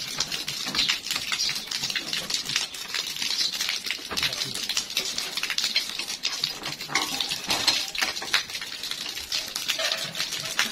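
Water pouring and spattering out of a threaded pipe joint as it is loosened with a pipe wrench, with some metal clinks from the wrench on the fitting. The line is draining through the opened joint.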